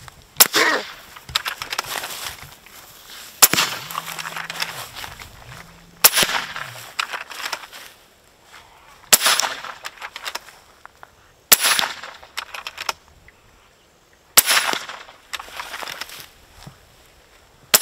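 Air rifle fired repeatedly at a wild boar: about six sharp shot cracks, roughly three seconds apart, with rustling between shots.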